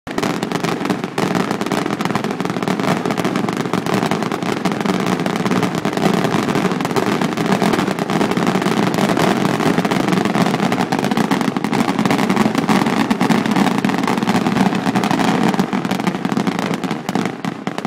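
Dense, continuous barrage of aerial firework shells bursting and crackling, one report running into the next with no pause, picked up by an iPhone 4's built-in microphone.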